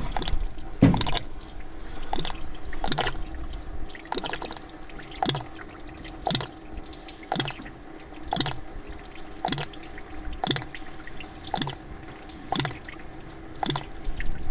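Engine coolant dripping from a loosened drain screw into a drain pan, a drop landing about once a second.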